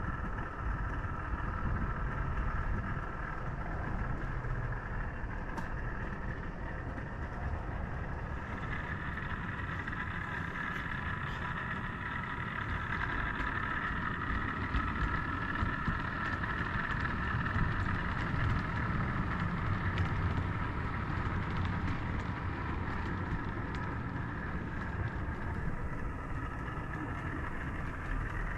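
00 gauge model train running on the track: a steady rumble with a motor whine that grows louder and a little higher in the middle before settling back.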